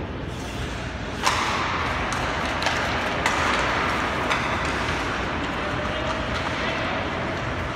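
Ice hockey play: a sharp clack of sticks and puck about a second in as the faceoff is taken, then skates scraping the ice and a few more stick-on-puck clacks, with voices in the background.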